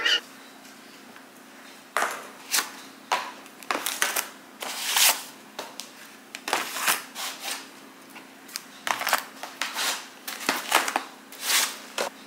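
Plastic meal-prep trays and their paper packaging being handled and set down on a countertop: irregular rustles, crinkles and clacks, starting about two seconds in, over a faint steady hum.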